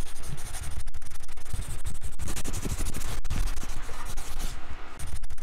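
Black sign pen (felt-tip) nib scratching across paper in drawing strokes, a steady scratchy hiss broken by a few brief, abrupt gaps.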